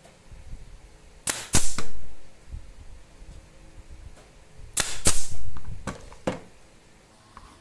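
Pneumatic brad nailer firing brads into a pinewood frame corner: four sharp shots in two quick pairs, each with a short hiss of exhaust air. Two lighter knocks follow near the end.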